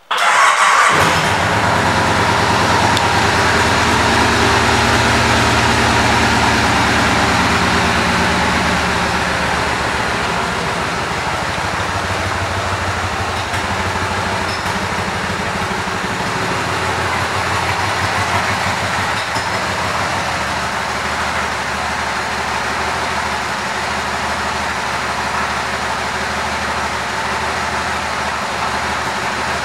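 Kawasaki Vulcan 2000's big V-twin engine starting and then idling steadily. It runs a little louder for the first several seconds before settling into an even idle.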